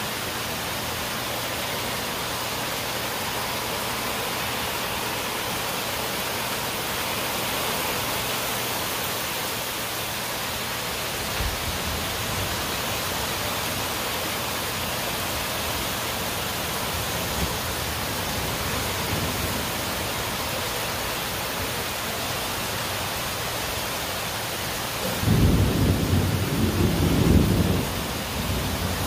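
Steady heavy rain falling, with a loud low rumble of thunder about 25 seconds in that lasts about three seconds.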